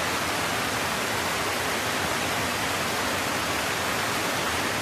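Swollen river in flood, fast-flowing floodwater rushing: a steady, even noise.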